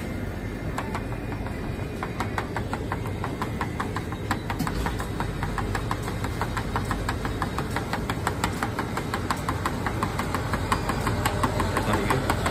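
Self-serve drink dispenser running with a rapid, regular clicking of several clicks a second, over a steady low machine hum; the clicking starts about a second in and grows louder toward the end.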